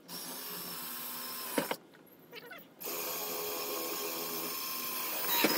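Cordless drill running in two steady whining runs, a shorter one then a longer one, drilling rivet holes through the aluminum boat deck, with a sharp click as the second run ends.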